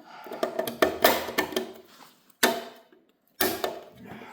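Metal clicks and clanks of hand tools and engine parts being handled during a Chevy 350 teardown: a quick run of light ticks, then two sharper knocks about two and a half and three and a half seconds in.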